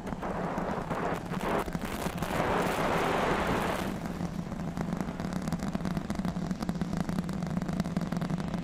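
Starship Super Heavy booster's Raptor engines rumbling and crackling during ascent. The sound swells for a couple of seconds about two seconds in, then settles into a steadier rumble with a low hum underneath.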